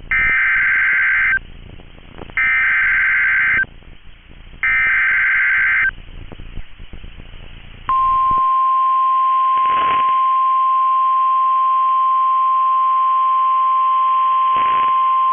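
NOAA Weather Radio SAME (Specific Area Message Encoding) header: three short bursts of buzzy data tones, each a little over a second long. About two seconds later comes the loud, steady 1050 Hz warning alarm tone, which announces that a new warning is about to be broadcast.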